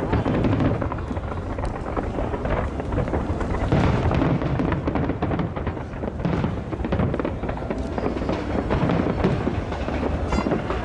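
Fireworks going off in quick succession, overlapping booms with sharp crackling, and a rapid string of crackles near the end.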